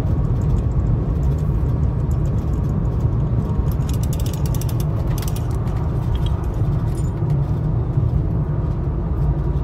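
Road noise inside a moving car: a steady low rumble of engine and tyres, with a short run of clicks about four to five seconds in.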